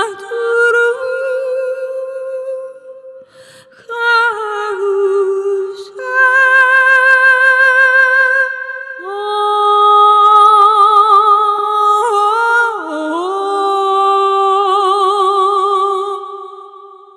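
Sampled solo female voice from the Kontakt library "Clara's Vocal", singing long wordless notes with vibrato. It moves through a few held notes, then holds one from about halfway through and fades out near the end.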